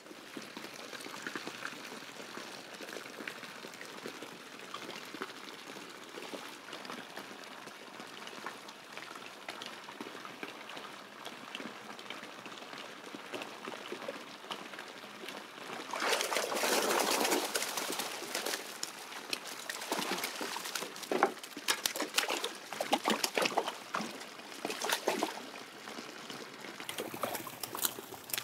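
A steady trickle of running water at a pond, then, a bit over halfway through, a loud splashing as a long-handled landing net is swept through the water to catch a live carp. Irregular splashes and knocks follow as the netted carp is lifted out.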